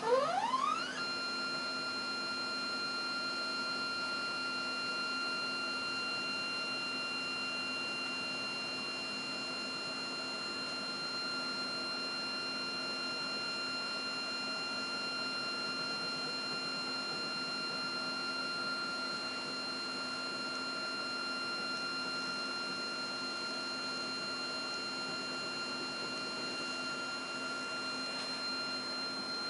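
Heidelberg Saphir HiRes film scanner's tray drive motor pulling the negative tray into the scanner. It starts with a whine that rises in pitch over the first second, then holds one steady high tone with overtones as the tray creeps in.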